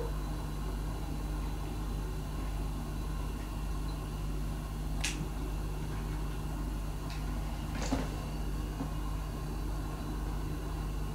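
Steady low hum with a few short sharp clicks as a cat eats dry kibble from a raised bowl, most of them in the second half.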